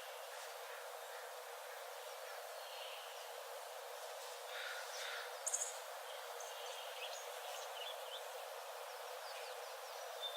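Rainforest ambience: a steady hiss with scattered bird chirps and short calls, and a brief sharp click about five and a half seconds in.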